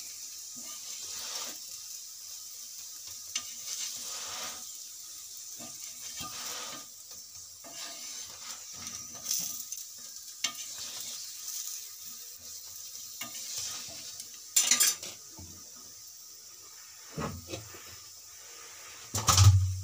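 Aloo paratha sizzling in oil on a tawa, with a flat metal spatula now and then scraping and pressing it against the pan. A louder knock of metal on the pan comes just before the end.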